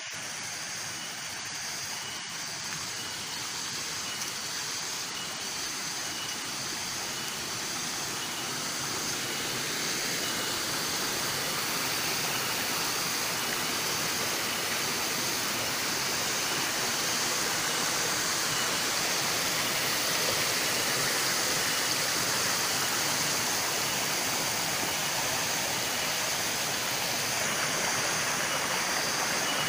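Small spring-fed stream of water splashing and trickling over rocks, a steady rush that grows gradually louder through the first half.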